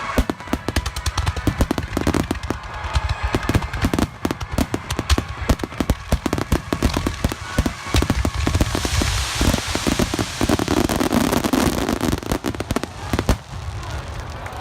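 Fireworks going off at close range: a dense barrage of sharp cracks and pops over low booms, stopping abruptly about a second before the end.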